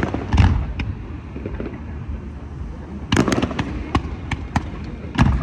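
A fireworks display going off: a deep boom about half a second in and another near the end, a quick cluster of sharp bangs around three seconds in, and scattered single cracks in between.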